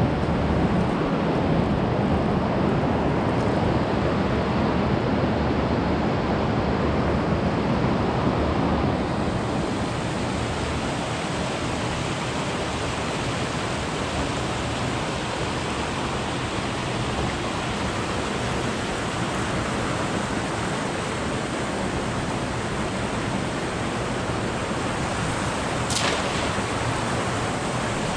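Mountain river rushing over boulders and down small cascades, a steady hiss of running water.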